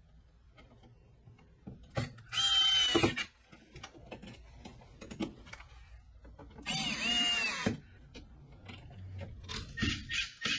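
Cordless screwdriver driving the mounting screws of an electrical receptacle into its wall box. It runs in two short spurts of about a second each, a steady motor whine, with faint clicks of handling in between.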